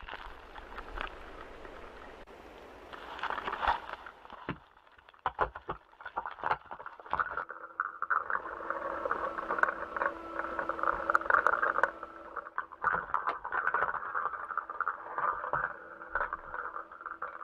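Muffled knocks, rubbing and scraping carried through a spacesuit-mounted GoPro camera during a spacewalk, over a steady hum. It gets busier and louder about halfway through.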